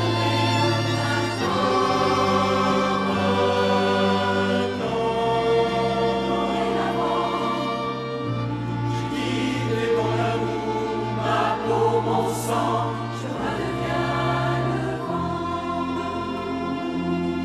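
Mixed choir singing held chords with instrumental accompaniment including strings, the low bass notes changing every few seconds.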